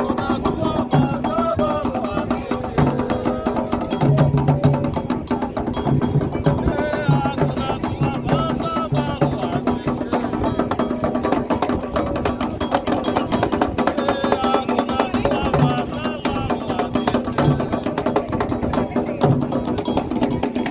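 Candomblé toque: atabaque drums and struck percussion playing a fast, driving rhythm, with voices singing over it.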